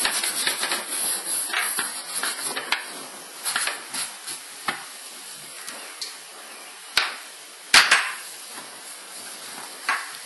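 A cloth rubbing cleaning cream over a leather handbag, in quick scratchy strokes for the first few seconds. After that come a few scattered clicks and knocks, the loudest about eight seconds in.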